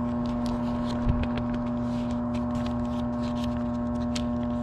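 Paper sheets rustling and crinkling as a stack of bills of lading in a manila envelope is handled and leafed through, in many short, quick crackles with a soft knock about a second in. A steady droning hum sounds under it throughout.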